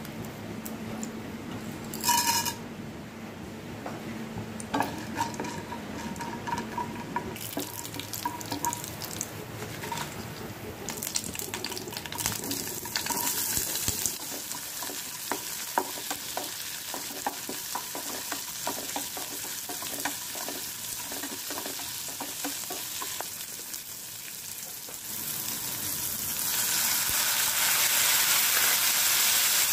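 Frying in a steel pan: a few ringing metal clinks at first, then oil sizzling from about seven seconds in, with crackling and a spoon stirring and scraping as mustard seeds, lentils, dried red chillies and onions fry. Near the end the sizzle grows louder as chopped tomatoes go into the pan.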